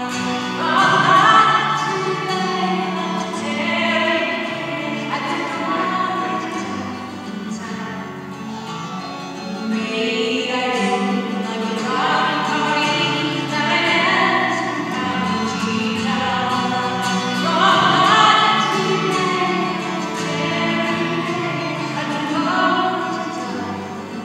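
A fiddle and a twelve-string acoustic guitar playing a tune together: the fiddle's bowed melody, with sliding and held notes, over the guitar's accompaniment.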